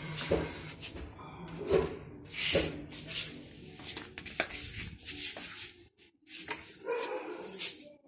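A dog barking repeatedly: several short barks, then a pause, then a few more near the end.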